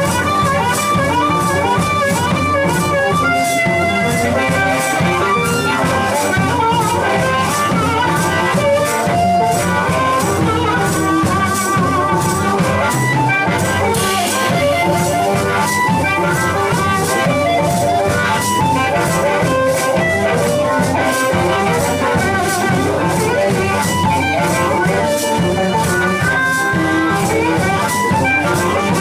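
Live blues band playing an instrumental passage. A harmonica played close into a microphone carries the melody over a hollow-body electric guitar, and maracas are shaken in a steady, even rhythm.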